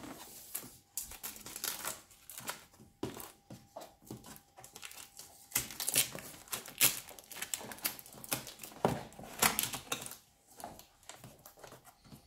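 Cardboard box and packaging being handled and opened: irregular rustling, scraping and knocks, with the busiest stretches in the middle and near the end.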